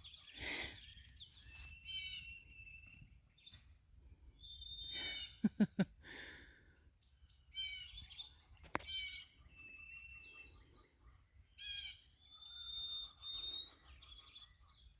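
Wild birds chirping and singing in short phrases. A quick run of three sharp, loud sounds comes about five and a half seconds in.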